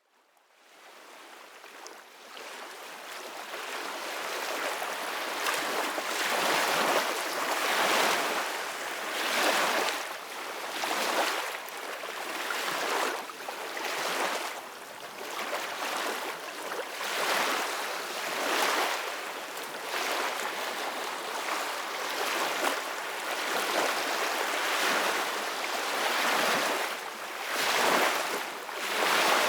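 Gentle ocean waves washing ashore, a steady hiss of surf that swells and ebbs every second or two. It fades in over the first few seconds.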